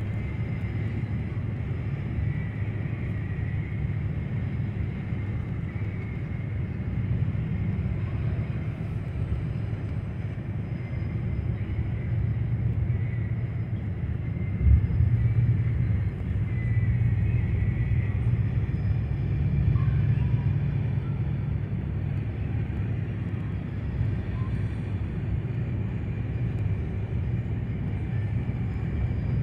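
Steady low road and engine rumble heard from inside a moving intercity bus, with a single thump about halfway through, after which the rumble is a little louder for several seconds.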